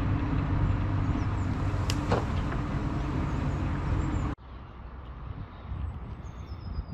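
An engine running steadily with a low hum, cutting off abruptly after about four seconds; then quieter outdoor background with a high, falling bird call near the end.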